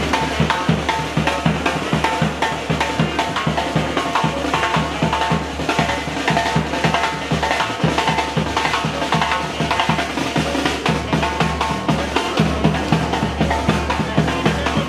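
Panamanian murga band playing: a fast, driving beat on bass drum and snare, with held horn notes over it.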